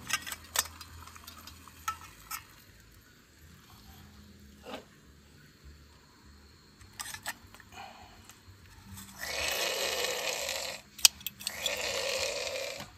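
Kitchen handling sounds: scattered sharp clinks of utensils against dishes and pans, then two loud hissing bursts of about a second and a half each near the end.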